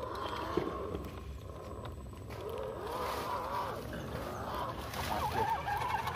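1/10-scale RGT EX86100 V2 RC crawler driving through shallow muddy water, its electric motor and drivetrain whining under the wheel splashing, with wavering animal calls over it, mostly in the middle and near the end.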